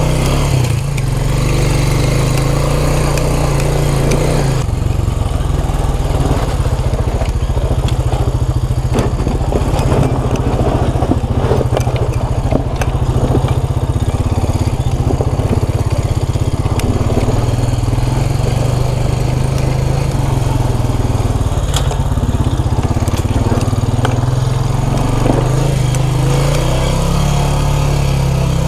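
A vehicle's engine running at low speed with a steady low drone, while the tyres crunch and knock over loose rock. The crunching is densest from about five seconds in until about twenty-two seconds.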